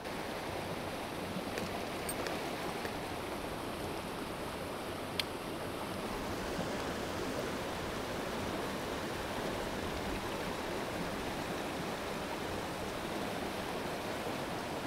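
Small mountain stream rushing steadily over rocks in a short riffle. A single sharp click sounds about five seconds in.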